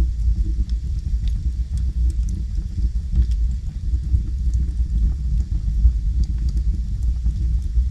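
Logs burning in a fireplace: a steady low rumble of the fire with scattered small crackles and pops.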